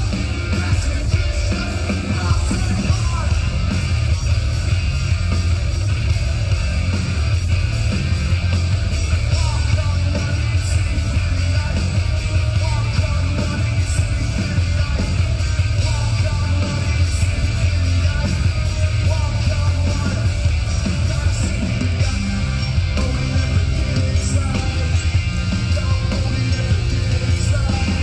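Live rock band playing loud: distorted electric guitars, bass guitar and drums, with a heavy, booming low end, heard from within an arena crowd.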